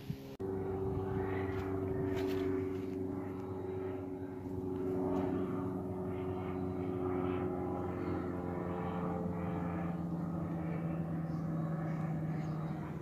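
A Cessna 172S Skyhawk SP's four-cylinder piston engine and propeller running steadily as it flies overhead, its pitch sinking slowly in the second half.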